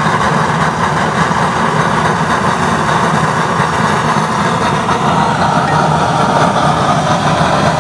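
Homemade used-oil stove burner with a no-weld coupling-reducer nozzle burning strongly: a loud, steady rushing flame noise with a low rumble underneath.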